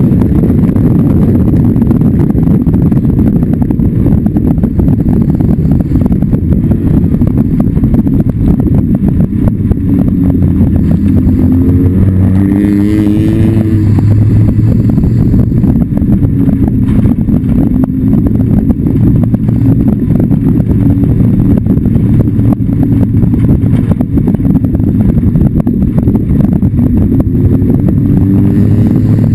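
Open-wheel race car's engine running hard at speed, heard loud from the car itself. The engine note climbs steadily in pitch about twelve seconds in and again near the end as the car accelerates.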